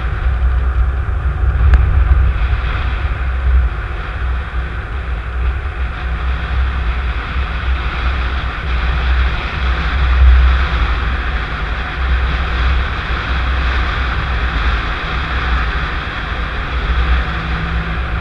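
A car driving, recorded by a dash camera inside the cabin: a steady low rumble of engine and road noise with an even hiss over it.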